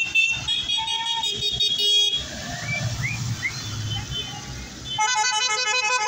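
A tractor's horn sounding for about two seconds, then the low rumble of a passing John Deere tractor's engine. Music starts near the end.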